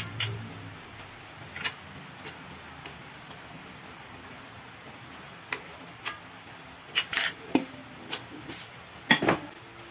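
Aluminium pot lid being lifted and set back on, and a ladle stirring the soup, with scattered clinks and knocks against the pot, the loudest near the end.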